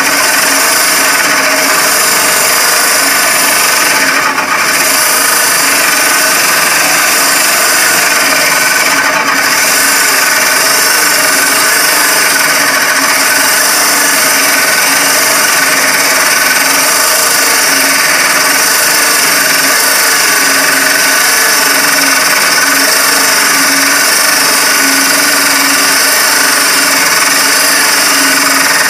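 Homemade table saw, a power saw mounted under a wooden bench top, running loud and steady while a board held upright in a jig is fed through the blade to cut a tenon. The sound dips briefly twice, about four and nine seconds in.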